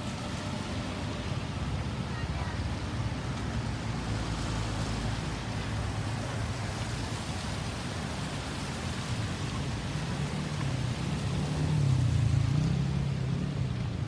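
Road traffic rumbling steadily, with a vehicle's engine growing louder and passing about twelve seconds in, then fading. No siren sounds.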